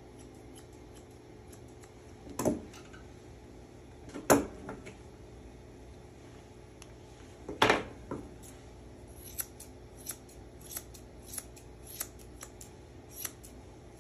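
Grooming shears snipping the hair on a Shih Tzu's face: a few scattered snips, then from about nine seconds in a steady run of quick snips, roughly one and a half a second.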